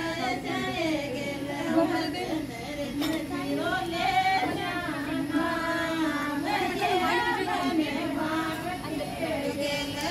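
Several women singing a Rajasthani folk song together, unaccompanied, their voices overlapping.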